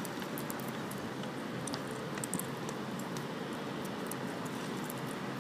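Pigeons pecking at dry banana chips on stone paving: many quick, irregular little clicks of beaks striking the chips and stone, over a steady hum of street noise.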